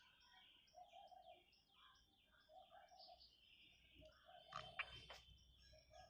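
Faint birds chirping in the background: many short, quick chirps with a lower call repeating about once a second. There is a brief click about five seconds in.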